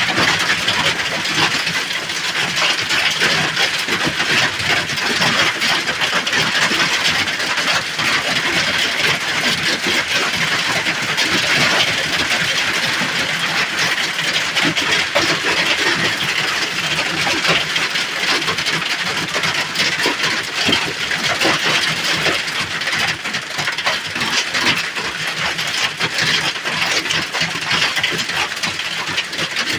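Hail hitting the roof of a small hut: a loud, continuous clatter of countless stone impacts, with no letup.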